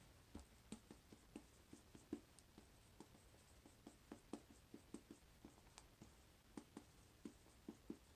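Felt-tip marker writing on a whiteboard: a quiet, irregular string of short taps and strokes as letters are drawn.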